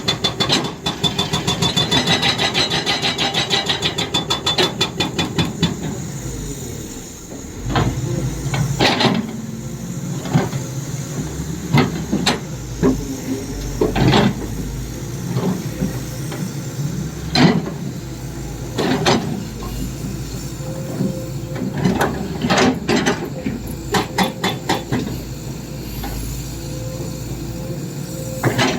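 Excavator's hydraulic rock breaker hammering in rapid blows for the first six seconds or so. After that the engine keeps running, with scattered single knocks and a short burst of quick strikes near the end.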